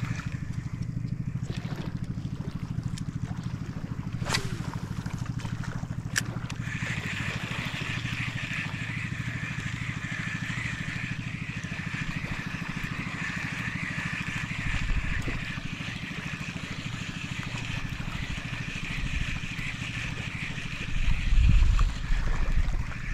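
A steady low, rapidly pulsing engine-like drone, of the kind a boat motor makes, with a higher steady buzz joining after about six seconds. Two sharp clicks come early on and a few low thumps come near the end.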